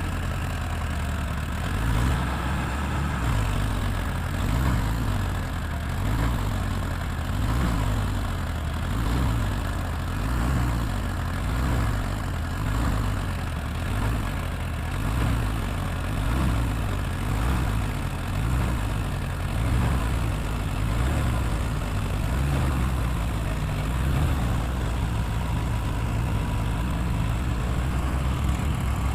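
Tractor diesel engine running steadily at low revs, its low note swelling and easing in a slow, regular rhythm a little under once a second.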